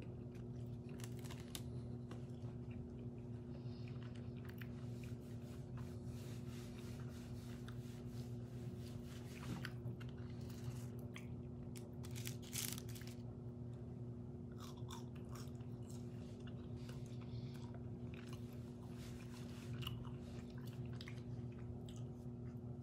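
A person chewing and biting into a McDonald's meal close to the microphone, with irregular crunches and wet mouth sounds over a steady low hum.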